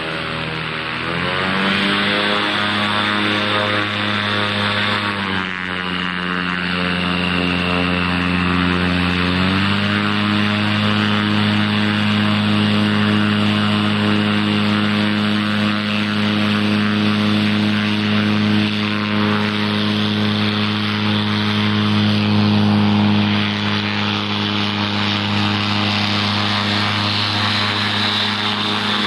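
Ultralight aircraft engine and propeller running steadily. Its pitch dips about a second in, drops at about five seconds and climbs back near ten seconds as the throttle changes, then holds steady.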